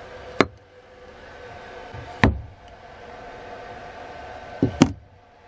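Four sharp knocks of a rusty axe head being handled on a wooden workbench: one near the start, one about two seconds in, and a quick pair near the end, over a steady background hum.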